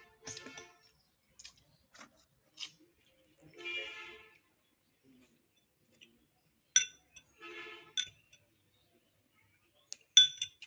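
A utensil clinking sharply against a dish several times, each clink ringing briefly; the loudest comes near the end. Two short pitched sounds come in between.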